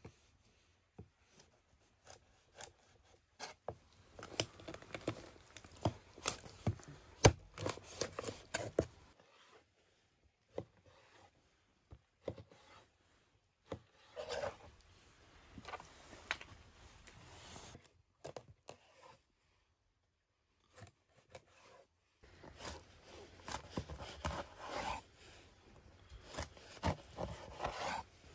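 Cleaver cutting raw grass carp fillet on a wooden cutting board: irregular sharp knocks of the blade striking the board, mixed with scraping, in three spells with short pauses between.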